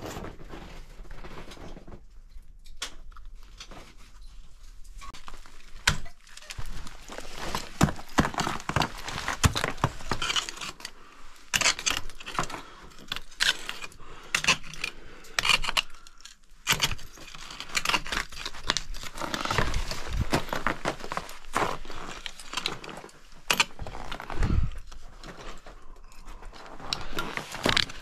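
Ice climbing: irregular sharp strikes of ice tool picks and crampons into waterfall ice, with climbing hardware such as ice screws and carabiners clinking and jangling between strikes.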